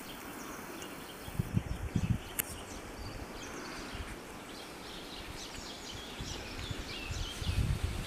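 Small birds chirping and twittering, mostly in the second half, over a steady outdoor hiss. A few low thumps on the microphone come about one and a half seconds in and again near the end.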